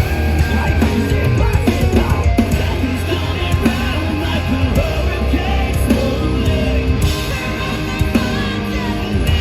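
Progressive metal band playing live: heavy distorted guitars, bass and drums with a singer's voice over them.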